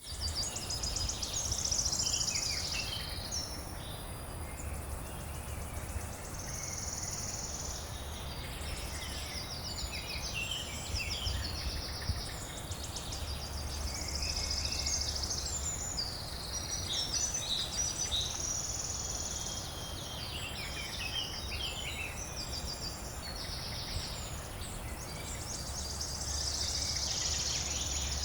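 Night garden ambience: crickets and other insects trilling and chirping in overlapping patches that swell and fade, over a steady low hum.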